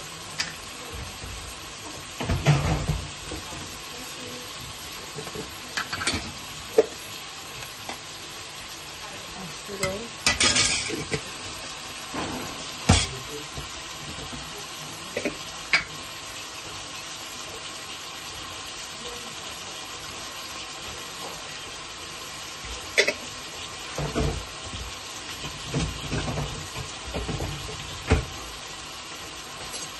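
Scattered knocks and clatters of a spoon and spice containers against an aluminium pot as whole spices and pepper go into chopped onions, over a steady background hiss.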